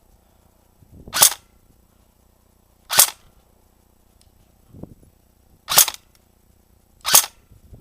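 Airsoft gun firing four single shots, each a sharp crack, spaced about one and a half to three seconds apart.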